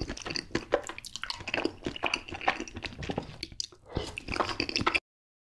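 Close-miked wet slurping and chewing of saucy instant noodles: a dense run of irregular smacks and squelches from the mouth. The sound cuts off suddenly near the end.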